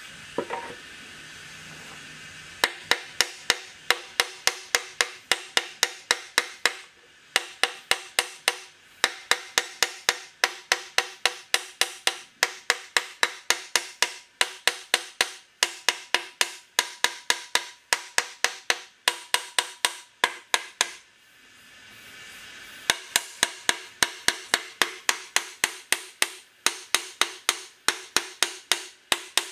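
A hammer striking metal over and over, about three blows a second, each blow ringing with a metallic tone. The hammering starts about two and a half seconds in and stops briefly a few times.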